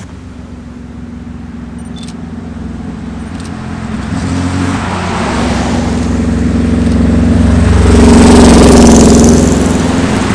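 A car's engine growing steadily louder as it approaches, loudest about eight seconds in as it drives past with tyre noise, then starting to fade.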